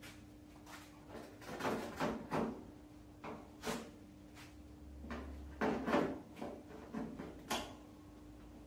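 Pliers and wire rattling and scraping against a car's front fender as they are worked by hand, in several short irregular spells, the loudest a little past halfway. A steady low hum runs underneath.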